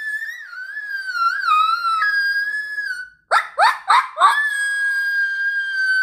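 A person's imitation coyote howl, called through hands cupped over the mouth: a high, wavering howl that breaks off about three seconds in, three quick rising yips, then a long held howl that slowly falls in pitch. It sounds a little elk-like.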